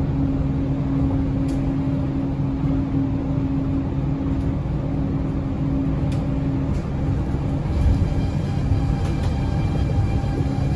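Yui Rail monorail train running, heard inside the car: a steady low rumble with a steady motor hum. A faint higher whine joins about two-thirds of the way in.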